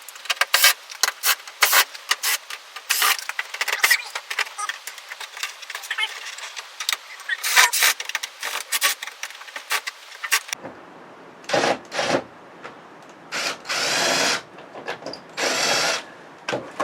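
A power drill/driver running in several short bursts in the last six seconds, the longest about a second, as screws are backed out of a flat-screen television being stripped for scrap. Before that, many quick clicks and knocks of parts being handled.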